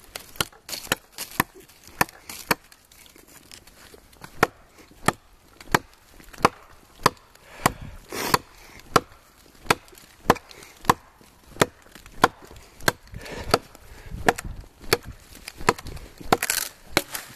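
Busse Combat NMSFNO fixed-blade knife chopping through a log about 4 inches thick: sharp wooden chops at a steady pace, about three every two seconds, with heavy breathing between strokes.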